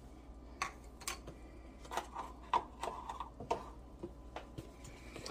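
A few light clicks and taps, scattered irregularly, from plastic spice containers, lids and measuring cups being handled on a kitchen counter.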